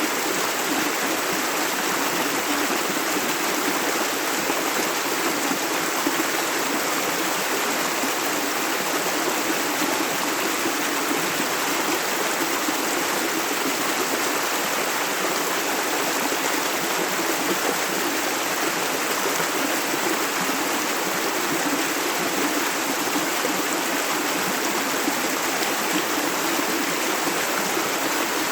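Clear, shallow river running steadily over stones, a constant even rush of flowing water.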